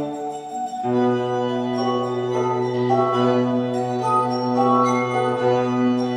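Glass harp of tuned wine glasses, played by rubbing fingers around the rims: sustained, ringing, overlapping tones, a slow melody held over a low steady note.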